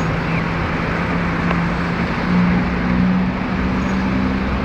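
Motor vehicle running with a steady engine drone and a hiss of road noise, its pitch shifting a little.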